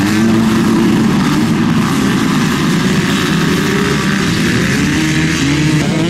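A pack of motocross bikes accelerating hard off the start, many engines revving together, their notes climbing and dropping back again and again as the riders shift up.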